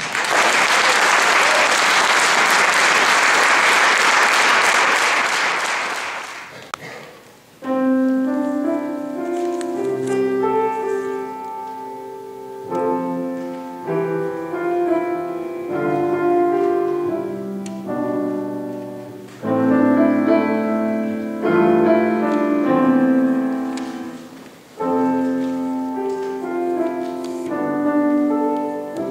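An audience applauds for about six seconds. After a short gap a piano starts playing, in phrases with short breaks between them.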